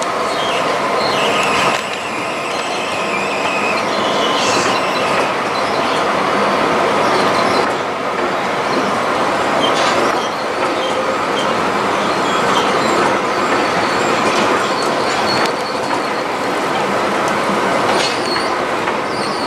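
Tram running on its rails, a steady rolling rumble with the wheels squealing in thin high whines, most clearly about a second in and again around four seconds in.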